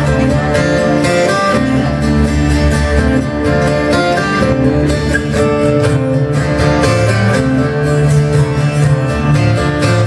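Two acoustic guitars strummed together in a steady rhythm, playing chords.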